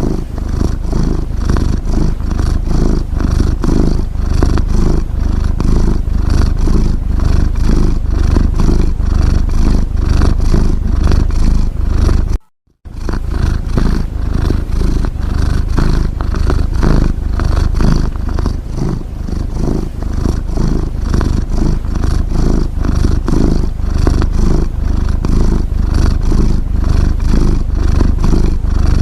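Domestic cat purring: a steady, evenly pulsing rumble, cut off for a split second about twelve seconds in.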